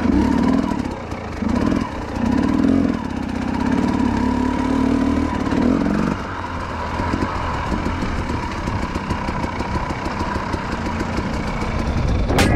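Enduro motorcycle engine heard from on board while riding a rough trail: the throttle opens and closes in several short surges over the first six seconds, then the engine runs more evenly.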